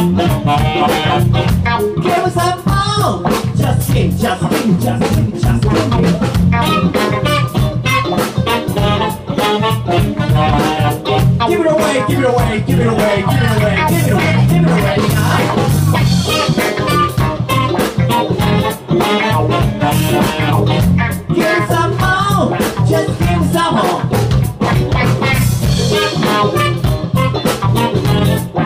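Live band playing an upbeat horn-led number in a ska/funk groove, with saxophones, electric guitar and drum kit.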